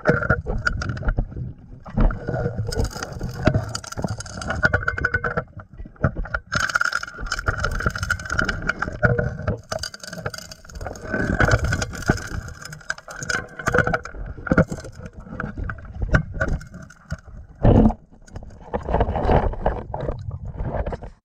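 Underwater recording of a 4-inch gold suction dredge at work: a steady drone from its engine and pump carried through the water. Over it come recurring rushes of a diver's exhaled bubbles from a hookah regulator, lasting a few seconds each, and occasional knocks of rocks at the nozzle.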